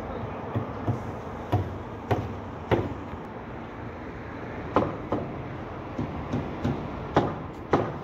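Steady rumble of construction-site machinery with about a dozen sharp, irregularly spaced knocks.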